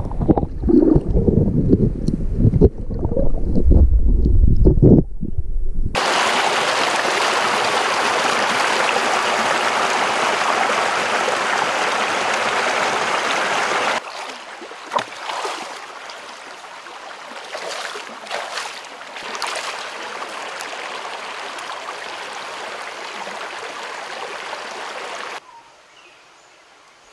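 Stream water. For the first few seconds it is a low, muffled rumbling and sloshing heard through a microphone underwater. Then comes a steady, loud rush of running water, and then a softer flow with a few light splashes, falling away near the end.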